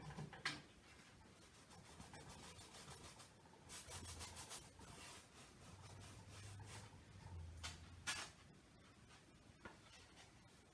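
A nearly dry flat brush dragged over canvas in a dry-brush technique: faint scratchy strokes, a few louder ones around four to five seconds and eight seconds in.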